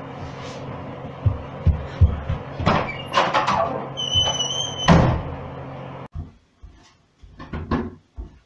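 Interior bedroom door being opened and swung shut, closing with a loud bang about five seconds in. A few low knocks come before it.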